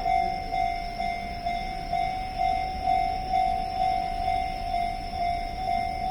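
Electronic level-crossing alarm ringing: a single bell-like tone repeating steadily about twice a second, over a low rumble.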